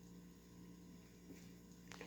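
Near silence: room tone with a faint steady low hum and one faint click near the end.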